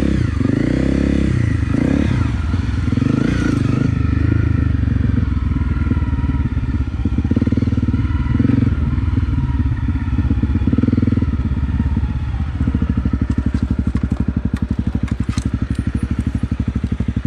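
Honda CRF250 Rally's single-cylinder dirt-bike engine running on the trail, the throttle opened and eased off in surges. About twelve seconds in it settles to steadier, lower running, with a few light clicks near the end.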